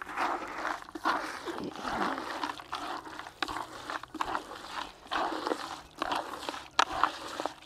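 Gloved hand kneading and squeezing a thick, wet, oily bait mash of ground pellets and fish in a plastic bucket: repeated irregular squelches with small sharp clicks.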